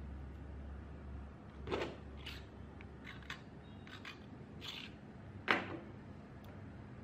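Handling noise from preparing a network cable for an RJ45 plug: a string of short clicks, ticks and rustles as the wire pairs are worked and the crimping tool and cutters are picked up and set down. The two loudest knocks come about two seconds in and about five and a half seconds in.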